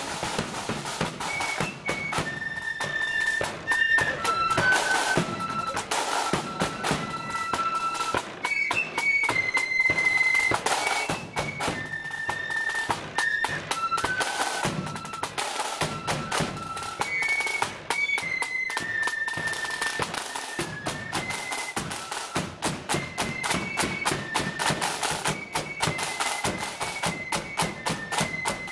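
Blood-and-thunder marching flute band playing a tune: a melody of unison flutes over a rapid, dense beat of snare drums and a heavy bass drum.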